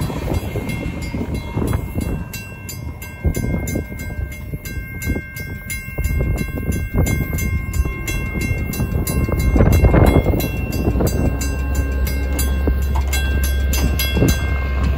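WCH mechanical crossing bell ringing with rapid, evenly spaced strikes, over the rumble of the freight train moving off.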